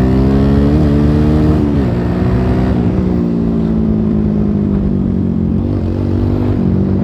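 Suzuki Gixxer motorcycle engine pulling under acceleration, its pitch rising and then dropping at a gear change about two seconds in, climbing briefly again and settling into a steady cruise with a couple of small dips from throttle changes.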